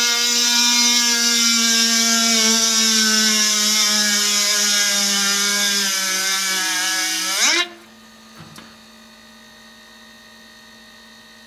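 A 12-volt DC motor run straight off a car battery whines at speed while the toothed gear on its shaft grinds into a piece of flooring, with a hiss of grinding over the whine; its pitch sags slowly under the load. About seven and a half seconds in, the whine rises briefly and then cuts off suddenly, leaving a faint hum.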